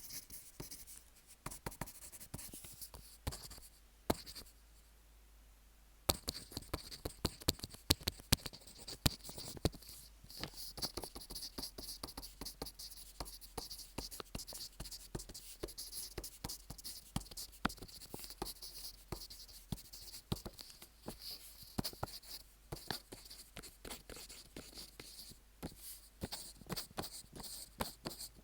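Handwriting on paper, picked up by a microphone fixed to the paper: scratchy strokes of a pen tip on the sheet, with sharp little ticks as each stroke starts and ends. The writing stops for about two seconds a few seconds in, then carries on steadily.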